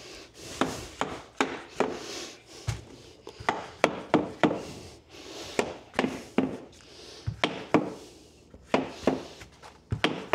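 Hardwood floorboards being hammered into place with a flooring nailer: a run of sharp wooden knocks, about two or three a second and uneven, with a few deeper thuds among them.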